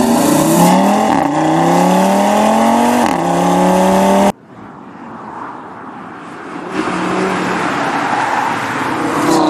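Audi RS3 sedan's turbocharged 2.5-litre five-cylinder engine heard at the exhaust tailpipes, accelerating hard: its note climbs in pitch and drops back twice, about a second and three seconds in, as it shifts up. About four seconds in the sound cuts off suddenly to a quieter, more distant car sound that grows louder near the end as the car comes through a corner.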